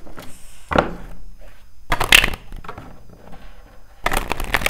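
A tarot deck being handled and shuffled by hand: two short rustles of the cards in the first two seconds, then a rapid run of card flicks near the end as the split deck is shuffled together.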